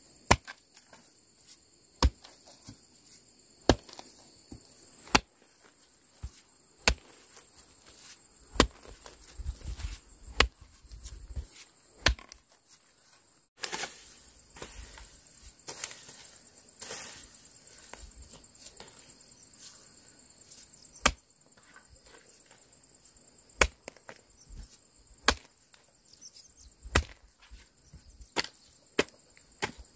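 Hoe blade chopping into hard, dry soil in single strokes, about one every second or two, with a stretch of scraping and rustling as it drags through dry stalks near the middle. Insects buzz steadily in the background.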